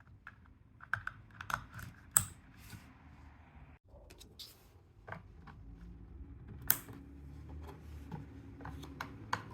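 Irregular plastic clicks and taps from handling cable-tester remote units and plugging their RJ45 connectors into network outlets, with a low hum underneath.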